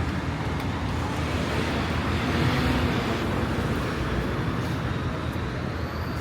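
Road traffic: a steady rumble of passing cars, swelling a little about two to three seconds in as a vehicle goes by.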